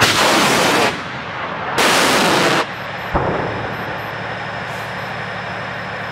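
Two rockets launching from a TOS-1A heavy flamethrower system, each a loud roar lasting under a second, about two seconds apart. Then a single sharp thump about three seconds in over a steady low rumble.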